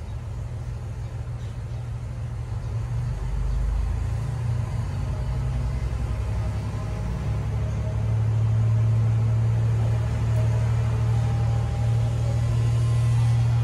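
Diesel railcar's engine running under power as the train pulls away from the station and gathers speed, heard from inside the car. It is a low drone that grows louder in steps about four and eight seconds in.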